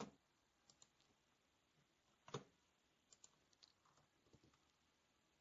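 Faint clicks of a computer mouse and keyboard against near silence: one click right at the start, a louder one a little past two seconds in, and a few fainter ticks after it.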